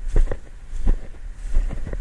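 Wind buffeting the microphone in a low rumble, with irregular soft thumps.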